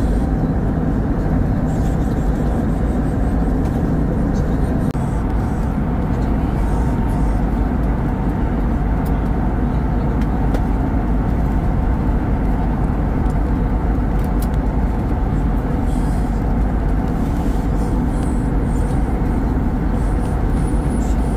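Steady cabin noise of an Airbus A320neo in cruise, heard from a window seat beside the engine: an even, low rumble of engine and airflow.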